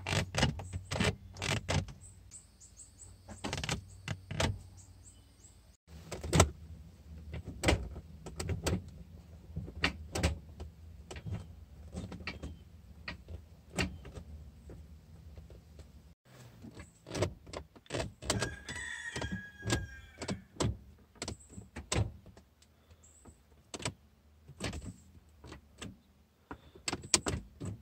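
Ford Mustang manual gear lever being moved through the gears, a run of sharp clicks and clunks as it drops into each gate, first with the factory shifter and then with a B&M Precision short-throw shifter. A brief squeak comes a little past the middle.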